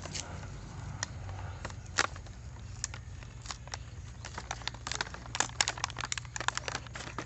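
Plastic toy parts and packaging being handled as a box is opened: irregular sharp clicks and taps, coming quicker and thicker in the last couple of seconds, over a steady low hum.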